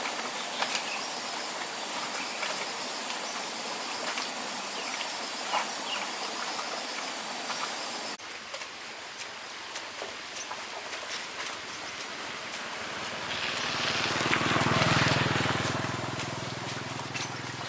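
Steady outdoor hiss with scattered small clicks. Near the end a motor vehicle engine swells up and fades away, as if passing by.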